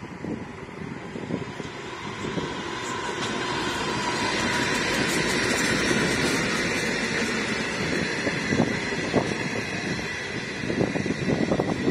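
Diesel-hauled passenger train passing close by: the locomotive and a long line of steel carriages run along the track, growing louder to a peak about five seconds in, then easing off. Wind buffets the microphone near the end.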